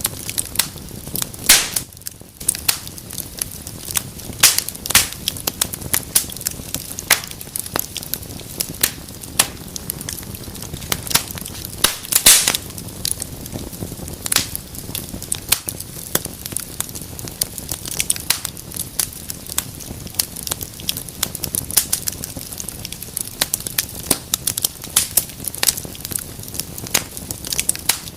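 Wood fire burning in a fireplace, crackling and popping steadily over a low rumble of flames, with a few louder pops.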